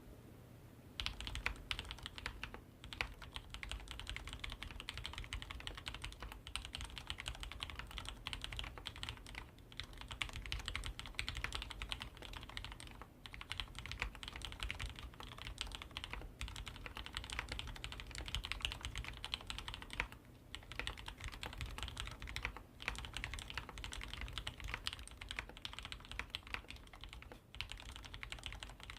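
Deck Francium Lite (CBL-87N) mechanical keyboard with Cherry MX Black linear switches being typed on in a fast, continuous run that starts about a second in, with a few brief pauses. With the sliders and stabilizers lubed and the case sound-dampened, the keystrokes come through as crisp clacks against the plate with hardly any case ring.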